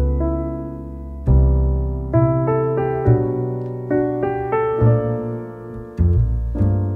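Background piano music: a slow melody of single notes and chords over low bass notes, each struck and fading before the next.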